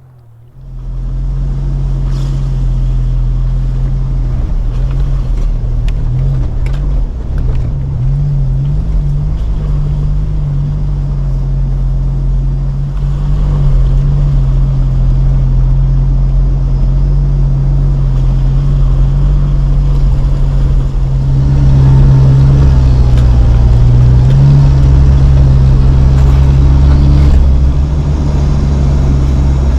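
Jeep driving slowly up a rough, rocky trail, its engine running with a steady low drone that wavers with the throttle. It starts abruptly about half a second in and gets a little louder about two-thirds of the way through.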